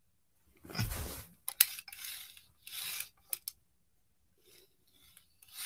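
Hands handling a plastic HO scale model track cleaning car on the track: rubbing and scraping with a few sharp clicks, quieter near the end.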